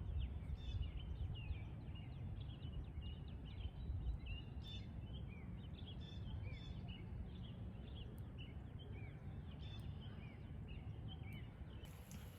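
Small birds chirping: many short, quick chirps overlapping, over a low steady outdoor rumble.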